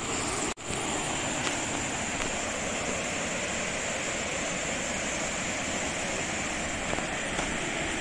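Steady rush of a fast-flowing river running over boulders and small rapids. The sound drops out for an instant about half a second in.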